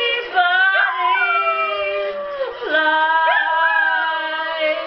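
A dog howling along with a woman singing, the two voices overlapping throughout, with steep upward swoops in pitch about a second in and again past three seconds.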